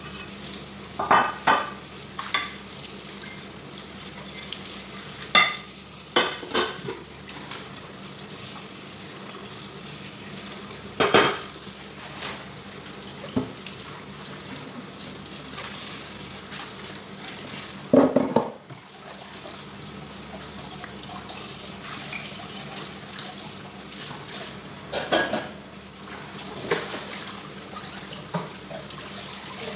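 Tap water running steadily into a kitchen sink while dishes are washed, with scattered clanks of a ceramic dish and stainless steel pots and a lid knocking in the sink; the loudest clatter comes about midway.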